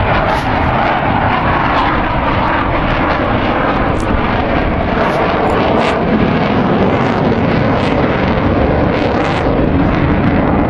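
F/A-18 Hornet-family jet fighter flying overhead with a loud, steady jet-engine roar. Its pitch drops slightly in the first couple of seconds.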